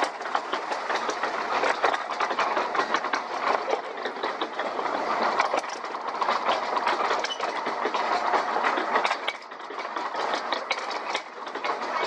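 Log flume lift hill: the chain drive hauling the boat up the ramp, rattling and clacking steadily with a rapid run of clicks.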